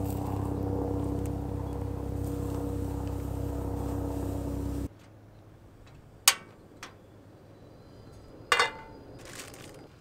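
A steady low hum, loud, which cuts off suddenly about five seconds in. Then a portable butane camp stove's igniter clicks sharply as its knob is turned, and a frying pan is set down on the stove's metal grate with a short ringing clink.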